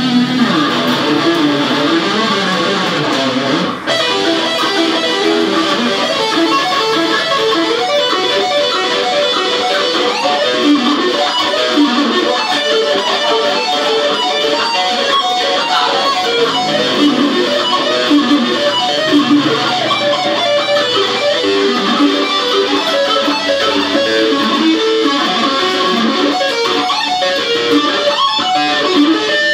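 ESP LTD FX 260 electric guitar played through a Roland Cube amplifier: a continuous run of quick single-note lead lines, with a brief break about four seconds in.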